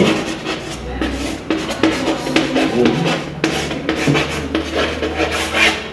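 Chalk writing on a blackboard: a quick run of short scratching strokes and taps as words are written by hand, over a low steady hum.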